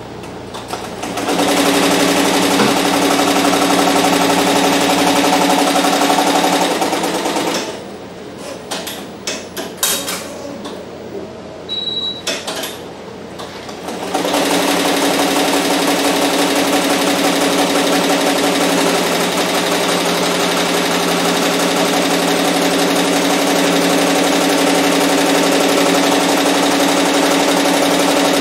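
Barudan multi-needle embroidery machine stitching a logo onto a cap on its cap frame: a steady, rapid needle-and-hook clatter. About halfway it stops for several seconds of scattered clicks and a short high beep, then starts stitching again.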